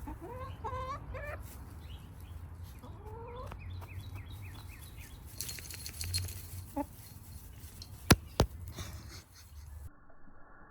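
Wyandotte hens making short rising calls, once in the first second and a half and again about three seconds in. About eight seconds in come two sharp taps a third of a second apart, the loudest sounds.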